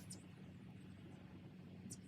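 Near silence: faint steady low hum with a couple of faint, short high-pitched ticks.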